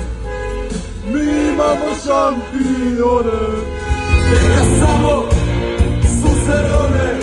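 Music with a man singing over a heavy bass that grows stronger and more pulsing about halfway through.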